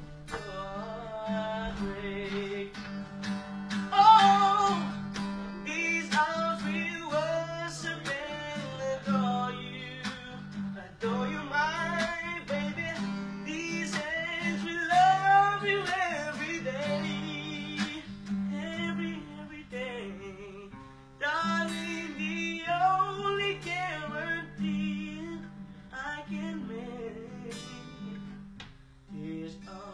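A man singing a love song with long, wavering held notes over acoustic guitar chords.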